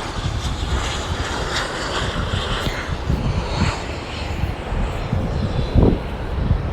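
Steady rumble of passing road traffic, with wind buffeting the microphone and a low thump near the end.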